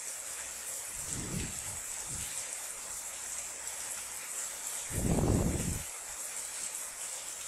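Steady hiss of an open microphone's background noise, with a few soft low muffled sounds; the loudest comes about five seconds in.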